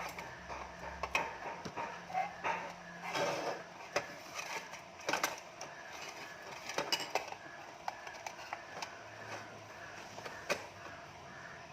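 Irregular light clicks and knocks with faint rustling between them.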